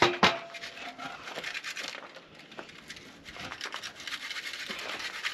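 A sharp double knock as a wooden board is lifted off a folding workbench, then faint scraping and rustling with footsteps on gravel.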